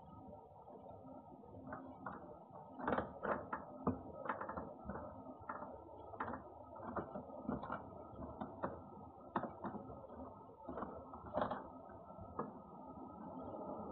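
A cat licking and washing itself: a run of small, irregular wet licking clicks, a few a second, over a steady low hum, through a security camera's dull-sounding microphone.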